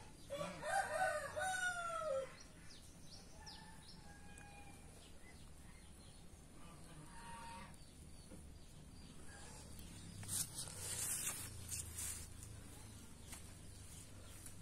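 A rooster crowing once, a long call of about two seconds that drops in pitch at its end. Faint short calls follow, and a brief stretch of rustling noise comes about ten seconds in.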